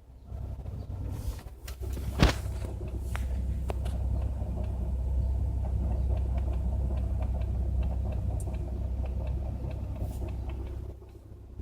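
Car engine running with a steady low rumble, under a light regular clicking of about three clicks a second, with one sharper click about two seconds in. The clicking is the noise the recording was made to capture.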